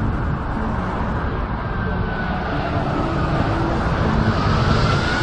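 Boeing 747 jet engines as the four-engine airliner passes low on landing approach: a loud, steady rumble and hiss. A thin whine comes in about two seconds in and rises slightly in pitch, and the hiss grows brighter near the end as the jet comes closer.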